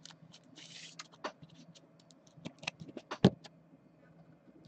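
A sports card being slid into a rigid plastic toploader: a brief soft sliding hiss, then scattered light clicks and scrapes of plastic and card handling, the sharpest click a little past three seconds in.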